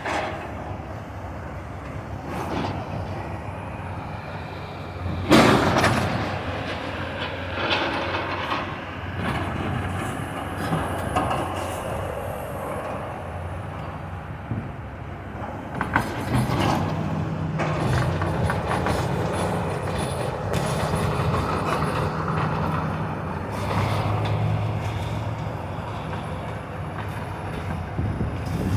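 Heavy demolition machinery tearing down a building: a diesel engine running under load amid continuous clanking and grinding of debris. There are loud crashes, the loudest about five seconds in and another about sixteen seconds in, and the engine note rises from about sixteen seconds on.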